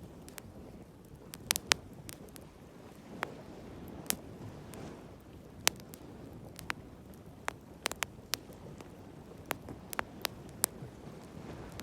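Wood bonfire crackling, with sharp pops at irregular intervals over a steady low rush of sea waves.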